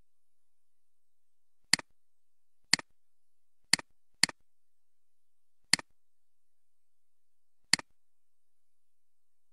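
Six sharp computer mouse clicks at uneven intervals, the first about two seconds in, two of them close together in the middle.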